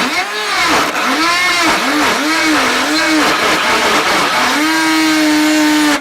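An engine revving in about five quick rises and falls in pitch, then held at a steady high pitch.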